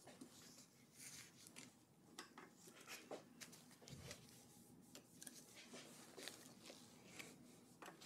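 Near silence, with faint scattered ticks and rubbing as a hex key works the handlebar stem clamp bolts.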